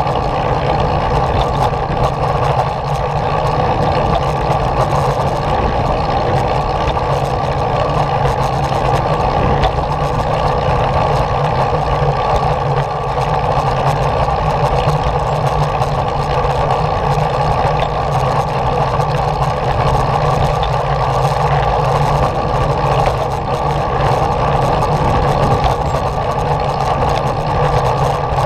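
Steady, unbroken running noise of the small vehicle carrying the camera as it rolls along a concrete path.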